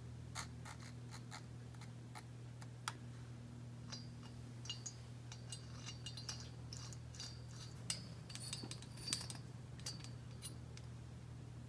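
Faint small metallic clicks and ticks as steel cylinder studs and a hex driver are handled and threaded by hand into an aluminium ATV cylinder, over a steady low hum.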